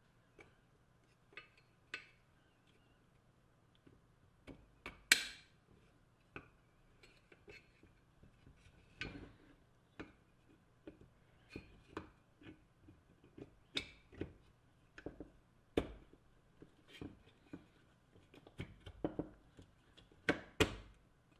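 Irregular clicks, taps and knocks of hard objects being handled and set down, with the loudest knock about five seconds in and two more near the end, over a faint steady low hum.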